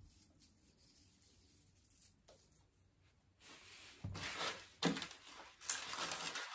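Quiet at first, then from about halfway a rustling with many light clicks as a tangled chain garland is pulled up off a pile on a wooden table.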